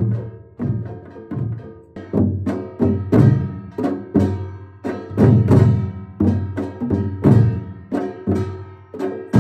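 Korean janggu hourglass drum struck with a thin bamboo stick and a round-headed mallet, played together with a buk barrel drum in a steady rhythm of about two strokes a second.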